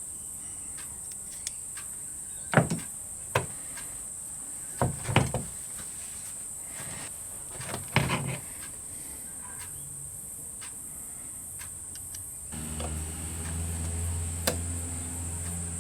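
Scattered sharp clicks and knocks of metal tools and parts being handled, a second or two apart, over a steady high-pitched hiss. Near the end a low steady hum comes in.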